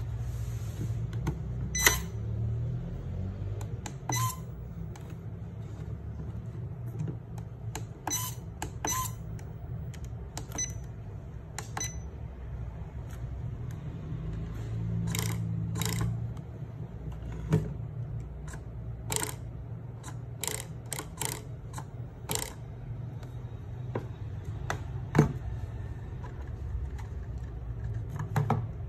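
Sharp clicks and short beeps from the buttons of a pistol-grip RC transmitter being pressed, at irregular intervals, over a steady low hum.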